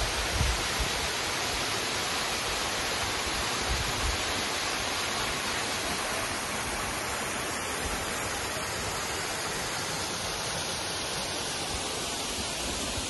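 Steady, even rush of a waterfall and mountain stream, with a few low bumps near the start.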